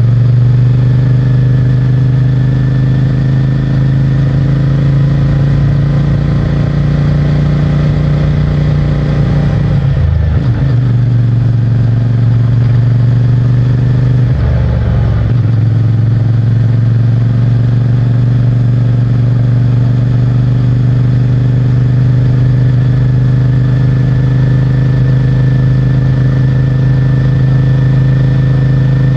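CFMOTO 450MT's parallel-twin engine and stock exhaust running under way, a steady, loud drone that rises slowly in pitch. It dips briefly twice, about ten and fifteen seconds in.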